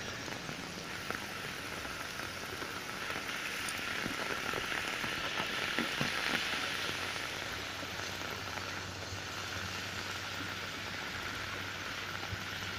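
Heavy monsoon rain pouring onto a wet asphalt road: a steady hiss that swells in the middle and then eases.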